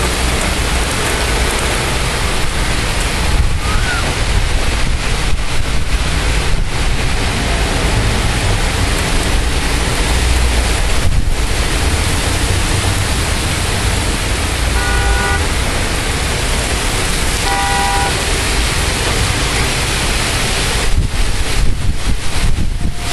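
Heavy rain pouring steadily, with two short car horn honks about two and a half seconds apart past the middle.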